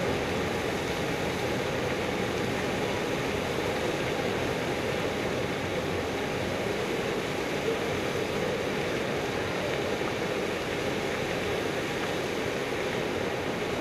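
Steady outdoor ambience of a large city square: a constant wash of distant crowd and street noise with no single sound standing out.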